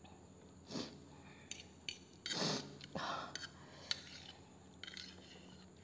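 Sniffing and breathing hard through the nose, a few loud sniffs with the loudest about halfway through, with a few light clicks and scrapes of a metal fork in a bowl.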